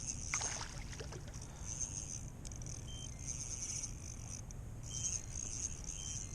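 Fishing reel being wound in spurts while playing a hooked trout, a high whirring that starts and stops every second or two, with a few short high beeps.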